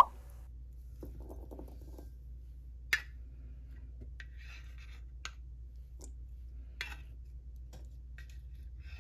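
Tableware being handled: a sharp clink at the start, then a few separate light taps and clinks of dishes and utensils spread over several seconds, over a steady low hum.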